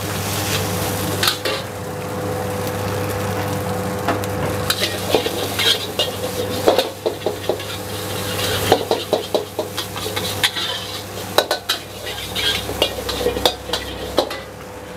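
Metal spatula scraping and clanking against a wok while stir-frying, with food sizzling in the hot oil. Under it is a steady hum from the burner and hood, and the clanks come thick and irregular through the second half.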